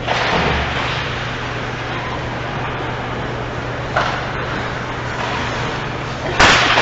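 Indoor ice rink noise during a hockey game: a steady wash of sound over a constant low hum, with a sharp click about four seconds in and a loud sudden bang near the end.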